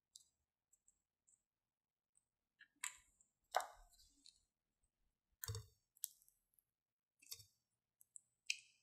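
About half a dozen faint, sharp plastic clicks and taps, the loudest about three and a half seconds in, from a squeeze tube being uncapped and handled as balm is squeezed out onto slime.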